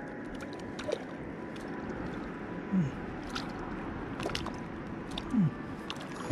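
Water sloshing and gurgling as a hooked fish thrashes at the surface while it is played in. There are two short, falling gulps, about three and five and a half seconds in.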